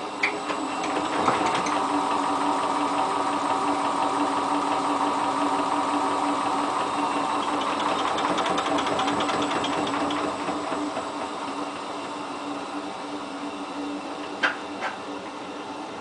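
Hotpoint Ultima WT960 washing machine on a fast spin, its drum and motor running with a steady whine and a fast rattle, spinning an unbalanced load of trousers without balancing first. It gets somewhat quieter about ten seconds in, and two sharp knocks come near the end.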